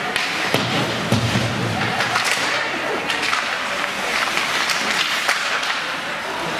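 Ice hockey being played in a rink: skates on the ice and sticks on the puck, with repeated sharp clacks and thuds over a steady hiss of arena noise.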